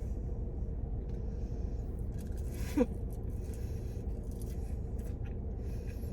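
Quiet eating sounds, chewing and small handling noises, over a steady low hum of a car cabin. About three seconds in comes one short pitched squeak that bends in pitch.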